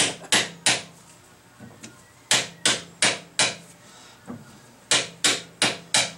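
Sharp metallic knocks in three quick runs of three or four, about three a second, with pauses between: the key of a three-jaw lathe chuck being struck to snug the jaws tight, with the chuck turned between runs.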